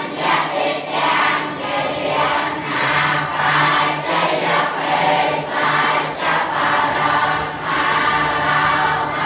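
A large group of young Buddhist novice monks chanting together in unison, in steady, evenly paced phrases.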